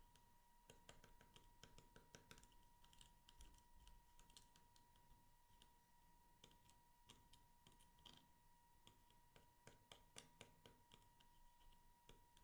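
Faint, irregular little clicks and crackles, typical of slime being squeezed, poked and stretched by hand, with a steady faint high tone underneath.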